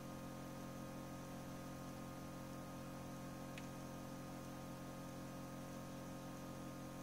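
Steady electrical hum with an even hiss from a running egg incubator, unchanging throughout; a single faint tick about three and a half seconds in.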